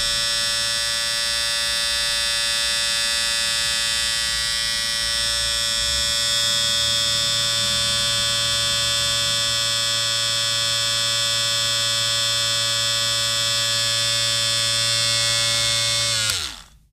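Electric shaver running with a steady buzz, then switched off near the end, its pitch falling quickly as the motor winds down.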